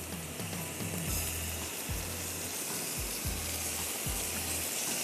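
Food sizzling steadily in hot oil in a pan, over background music with a low, regular beat.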